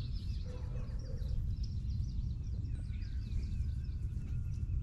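Outdoor ambience: a steady low rumble, with small birds chirping repeatedly in the background.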